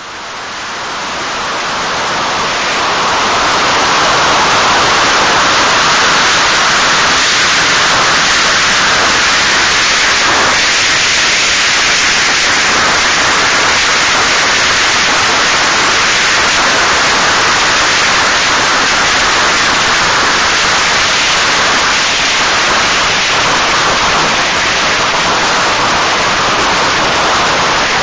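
Steady, loud wind roar over an onboard camera microphone riding at speed, with no engine note standing out. It fades in over the first few seconds.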